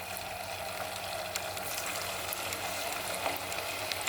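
Potato rings sizzling in hot oil as they deep-fry, a steady hiss with small crackles.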